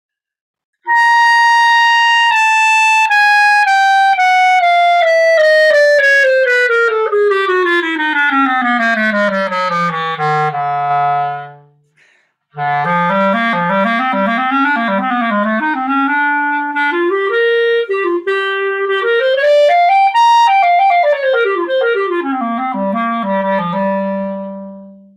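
Buffet Tradition B-flat clarinet, a model built for a dark tone, played solo. It plays a long stepwise run down from the upper register to the bottom of its range. After a brief breath it plays a winding phrase that climbs high, comes back down and ends on a held low note.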